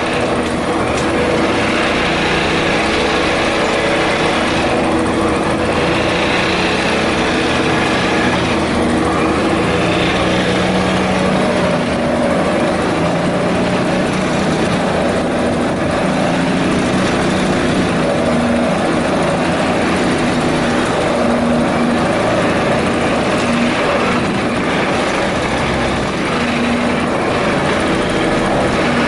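Vibratory pile hammer running, vibrating steel sheet piles into the ground: a loud, continuous mechanical drone with a steady hum that shifts slightly in pitch now and then.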